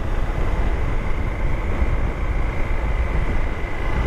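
Motorcycle riding at speed: wind rushing and buffeting over the helmet-mounted camera's microphone, with the bike's engine running underneath. A faint steady high tone runs through it.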